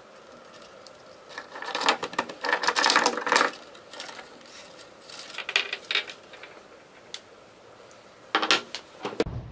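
Irregular clusters of small clattering clicks and rattles, the densest about two to three and a half seconds in, with shorter bursts around six seconds and again near the end. A steady hum cuts in abruptly just before the end.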